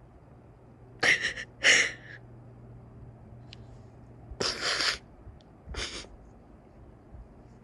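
A woman crying without words: a few sharp sniffs and shaky, sobbing breaths, two close together about a second in, a longer one around four and a half seconds and a short one near six.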